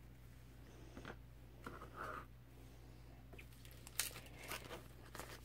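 Faint handling noises from washi tape rolls and craft packaging: light clicks as the rolls are set down on a cutting mat, then a run of soft rustling and crinkling, with a sharper click about four seconds in.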